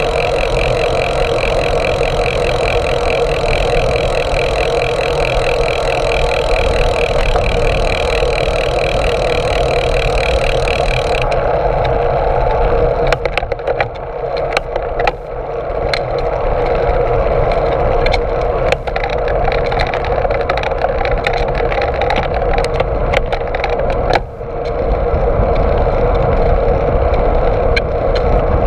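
Steady wind and tyre noise of a moving bicycle, picked up by a GoPro on the bike's stem. From about halfway through come scattered sharp clicks and rattles as the bike goes over bumps.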